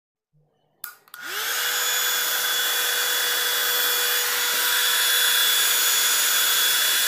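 A 1000-watt Philips hair dryer switched on with a click: its motor spins up with a short rising whine, then runs steadily with a constant hum over the rush of blowing air.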